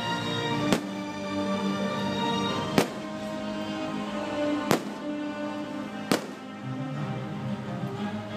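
Music playing throughout, with four sharp firework bangs about two seconds apart, the last one a little past the middle.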